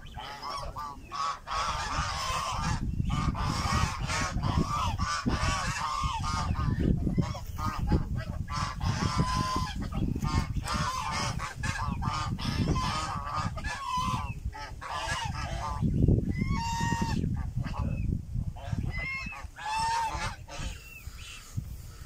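A flock of white domestic geese honking: many short, nasal calls overlapping and repeating, with a few clearer single honks in the second half.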